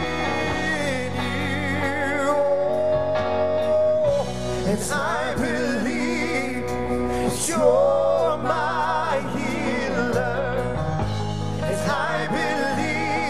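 Live gospel band playing: a male lead singer and a female singer, singing with vibrato and some long held notes, over electric guitars, keyboard and drums.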